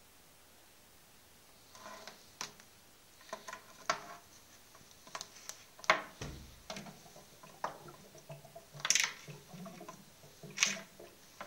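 Handling noise from a plastic siphon tube and its metal end piece being worked into the bung hole of a wooden wine barrel: irregular clicks, knocks and rubbing. It begins after a couple of quiet seconds, and the sharpest knocks come about halfway through and near the end.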